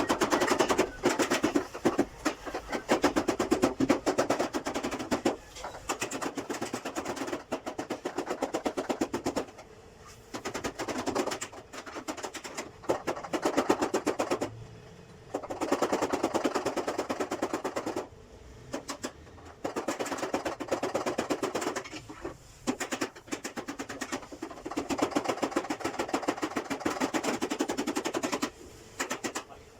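Rapid mechanical rattling knocks in bursts of a few seconds each, with short pauses between bursts, like a power tool or rapid hammering at work.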